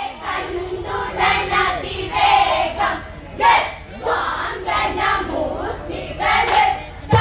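Group of women singing an Onamkali song in chorus.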